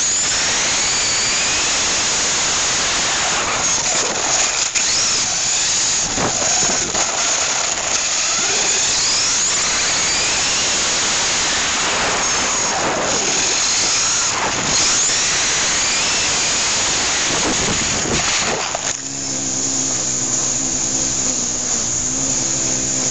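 Onboard sound of a Tamiya Blazing Star RC car on its TA-01 four-wheel-drive chassis, driving over asphalt: electric motor and gear whine rising and falling with speed over a rough rolling noise. About nineteen seconds in the driving noise stops and a steady low hum is left.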